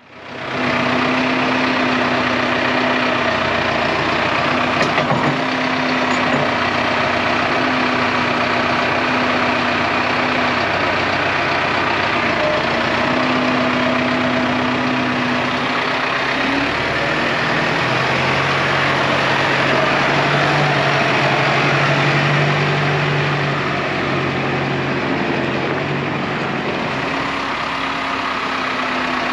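Diesel engine of heavy farm machinery running steadily, with a droning tone that drops lower for about ten seconds in the middle.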